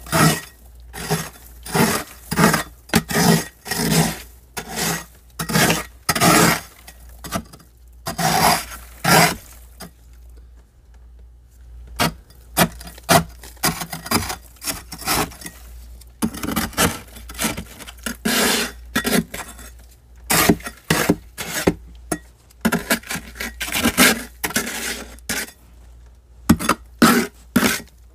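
Thick freezer frost being scraped off the walls in repeated strokes, about one or two crisp scrapes a second, with a break of about two seconds some ten seconds in. The frost is a week's heavy build-up.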